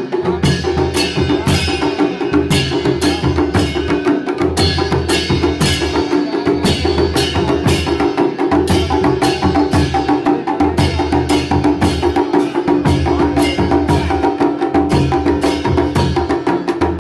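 Music with a steady drum beat, about two strikes a second, over sustained tones and a bass line.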